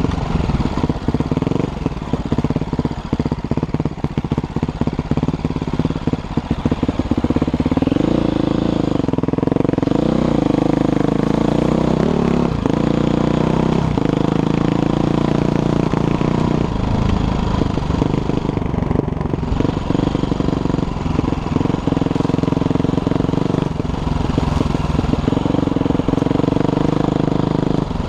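Dirt bike engine running under way, the revs rising and falling with the throttle. It sounds choppy for the first several seconds, then runs smoother.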